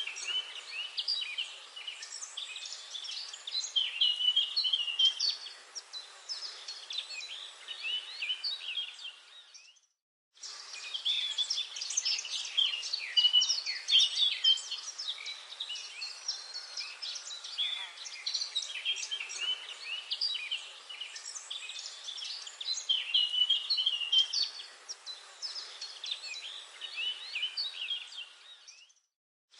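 Forest bird chorus: many birds chirping and singing at once in dense, overlapping calls. It fades out to a brief silence about ten seconds in and again near the end, then picks up again.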